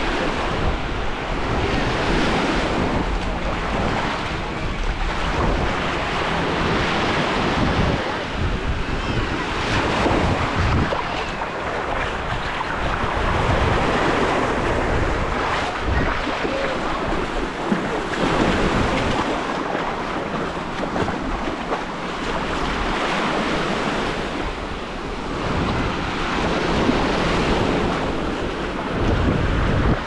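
Small sea waves breaking and washing over the sand at the water's edge, the surf rising and easing every few seconds, with wind buffeting the microphone.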